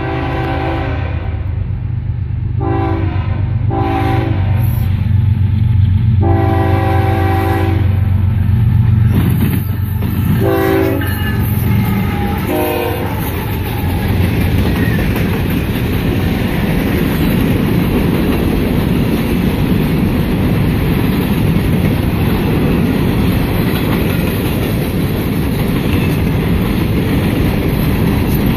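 A CSX freight train passes close by. The locomotive's air horn sounds a long blast, two short ones and another long one, then two shorter, fainter toots around 10 and 12 seconds in, over the deep rumble of the diesel engines. After that the freight cars roll past with a steady loud clatter of wheels on rail as they cross the diamond.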